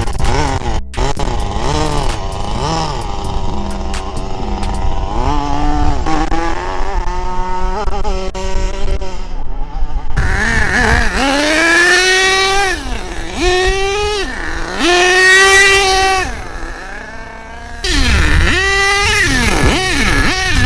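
HPI Savage XL nitro RC monster truck's small two-stroke glow engine revving up and down again and again as the truck is driven, its pitch rising and falling with the throttle. Near the end the engine drops quieter for a moment, then revs hard again.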